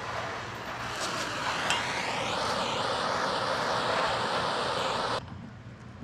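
Small gas torch burning with a steady rushing hiss as it heats a rusted-on truck wiper arm to loosen it. The flame grows louder about a second in, then cuts off suddenly near the end.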